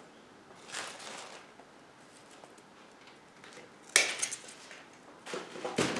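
Dry plant material rustling and crackling as hands pull a fibrous tuft of it apart: a soft rustle about a second in, a sharp loud crackle about four seconds in, and another crackle shortly before the end.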